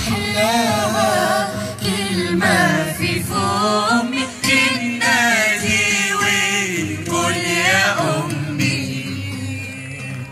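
Mixed group of men's and women's voices singing a cappella through microphones, a wavering lead line over low held notes. The singing thins out and softens near the end.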